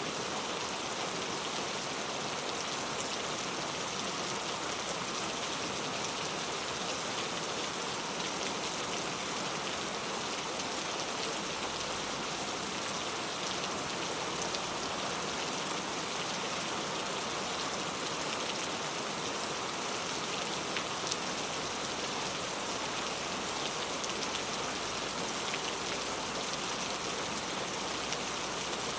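Steady rain ambience: an even hiss of rainfall with scattered faint drop ticks.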